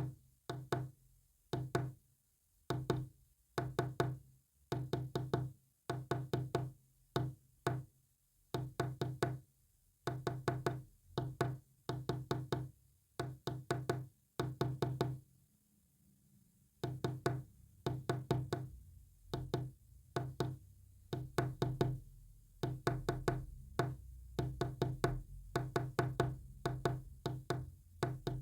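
Morse code sent as short sharp clicks, tapped out in quick groups of a few strokes with uneven pauses between the groups and one longer break past the middle.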